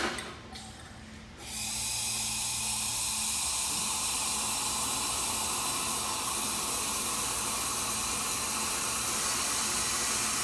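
A commercial espresso machine's hot-water spout hisses steadily as it dispenses near-boiling water into a cup, starting about a second and a half in. A short clink of the cup comes just at the start.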